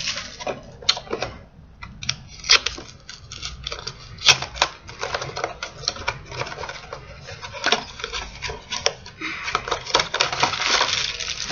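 A small cardboard blind box being torn open by hand: irregular clicks, snaps and tearing of the card flaps, then crinkling as the plastic bag inside is pulled out near the end.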